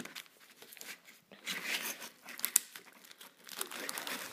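Paper packaging of small first-aid items crinkling and rustling as it is handled, in uneven spells with a few sharp clicks, starting about a second and a half in.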